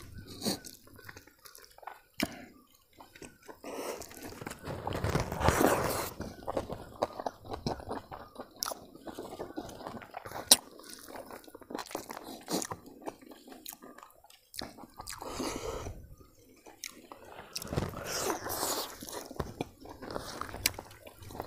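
Close-miked chewing and wet mouth sounds of a man eating roast chicken with his fingers, with scattered sharp clicks and short bursts of louder chewing.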